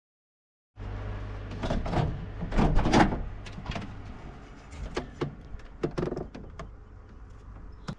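Knocks, clicks and sliding, scraping handling noises, loudest about two to three seconds in, over a low steady hum. The sound starts suddenly about a second in, after dead silence.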